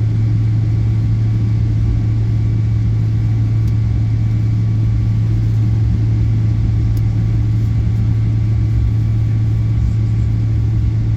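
Steady drone of jet engines heard inside an airliner's cabin, a strong unchanging low hum with a faint high whine over it.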